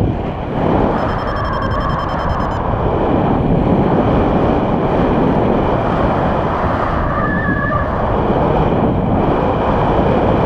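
Airflow buffeting the microphone of a camera on a paraglider in flight: a loud, steady rushing noise. A faint steady high tone sounds briefly about a second in.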